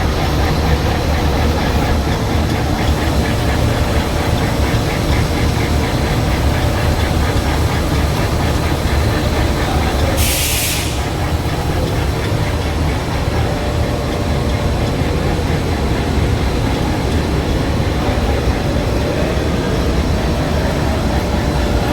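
A film window de-metallizing and registered coating machine running steadily with a low, even machine noise. A short hiss sounds about halfway through.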